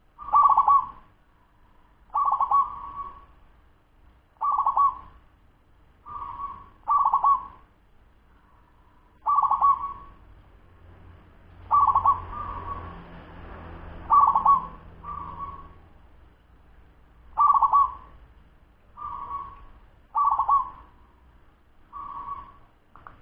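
Young zebra dove (perkutut), ten months old, cooing in a fast local style: a run of about a dozen short, ringing coo phrases, each following the last after a second or two.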